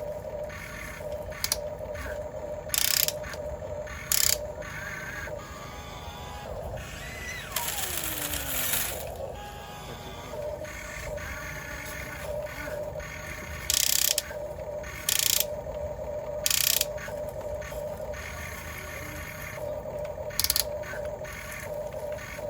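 Small electric gear motors of a toy construction vehicle whirring with a gear-like rattle, broken by several short, loud clacks.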